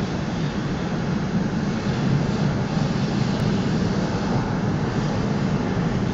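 Üstra Stadtbahn light-rail train running into the underground platform: a steady rumble of motors and wheels on the rails.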